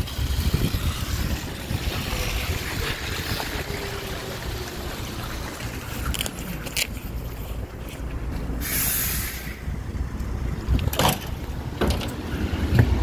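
City buses idling at a stop with a steady low engine rumble. A burst of compressed-air hiss lasts about a second around the middle, and a few short knocks come near the end.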